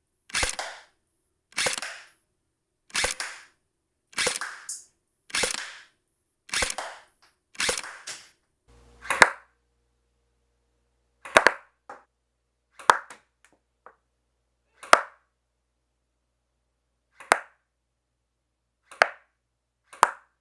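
Tokyo Marui High-Capa-E electric airsoft pistol firing BBs. About eight evenly spaced reports, each with a short tail, come roughly every second and a half over the first nine seconds. Then come shorter, sharper single shots at uneven intervals.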